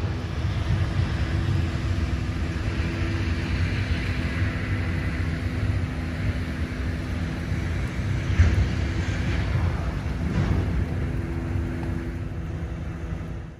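Caterpillar wheel loader's diesel engine running steadily under load as it carries logs on its forks, with a low rumble and a steady hum. A single clunk comes about eight seconds in.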